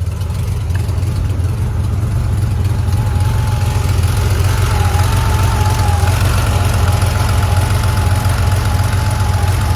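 Air-cooled 3.0-litre flat-six of a 1982 Porsche 911 SC idling steadily just after start-up, with the misfire the owner is recording. A thin, slightly wavering whine joins about three seconds in.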